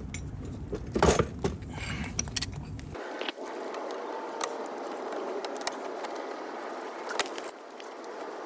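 Scattered metallic clinks and rattles of hand tools and loose car body parts being worked on, the loudest cluster about a second in and another sharp clink near the end. A low rumble fills the first three seconds, then stops abruptly.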